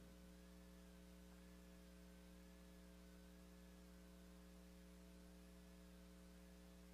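Near silence with a steady low electrical hum, and a very faint tone wavering slowly up and down about once a second.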